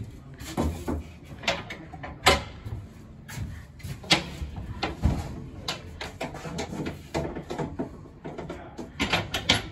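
Irregular knocks, clunks and clicks of hard objects being handled, the sharpest two about two and four seconds in.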